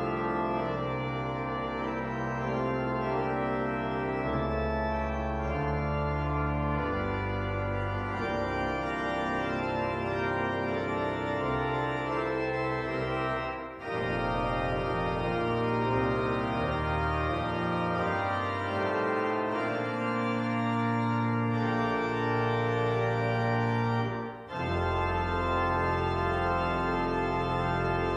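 Pipe organ playing slow, held full chords over deep bass notes. The sound breaks off briefly twice between phrases, about halfway through and near the end.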